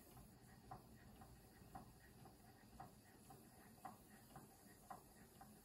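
Stuart Turner Williamson model vertical steam engine running slowly, giving soft, regular clicking beats about twice a second that alternate stronger and weaker.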